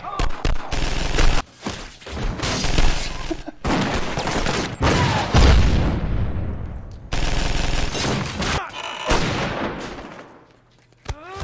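Film soundtrack gunfire: a dense volley of pistol, rifle and machine-gun shots, with a heavy blast about five seconds in, dying away near the end.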